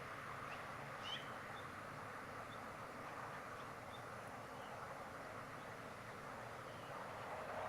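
Faint, short bird chirps, a handful scattered through, one a little louder about a second in, over a steady outdoor hiss.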